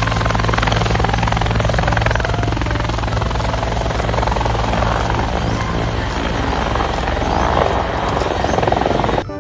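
Helicopter running steadily, its rotor blades chopping rapidly over the engine drone. The sound cuts off suddenly near the end.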